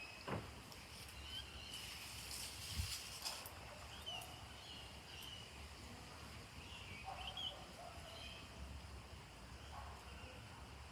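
Faint outdoor background with scattered short bird chirps, plus a couple of light knocks.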